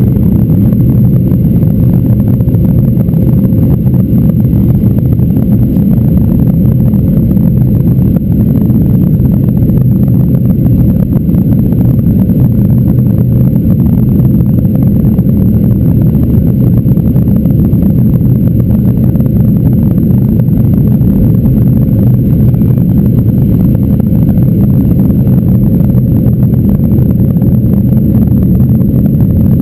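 Boeing 737-800 cabin noise during the initial climb after takeoff: the CFM56-7B engines at climb thrust, heard inside the cabin as a loud, steady, low rumble.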